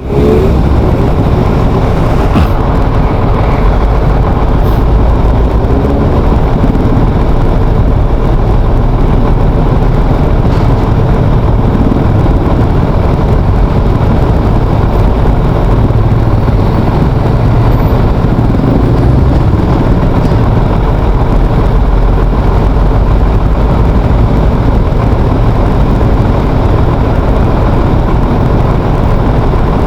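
Steady road-vehicle noise with a heavy low rumble and no clear pauses.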